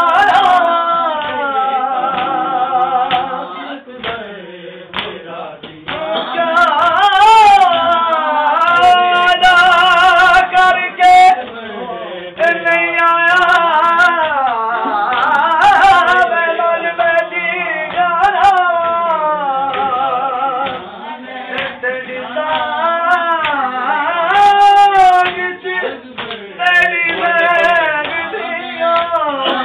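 Men singing a noha, a Shia mourning lament, with sharp slaps of chest-beating (matam) breaking in now and then.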